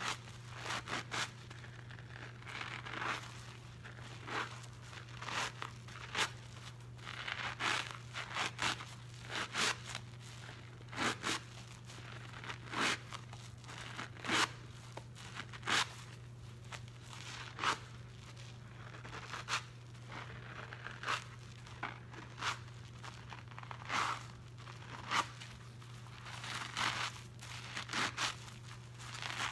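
Hands squeezing and kneading soap-soaked scrub sponges in thick dish-soap suds: wet squelches and crackling foam in short, irregular squeezes, one or two a second, over a steady low hum.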